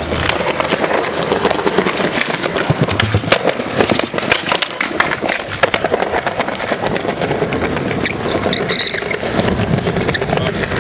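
Skateboard wheels rolling on smooth pavement, with many irregular clicks and knocks as the board's tail and wheels strike the ground during flatland tricks.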